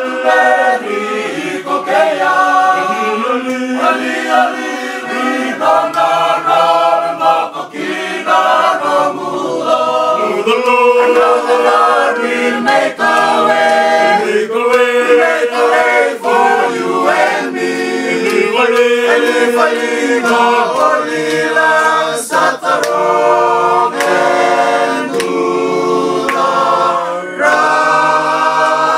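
A group of mostly male voices singing a cappella in several-part harmony, holding long, sustained chords.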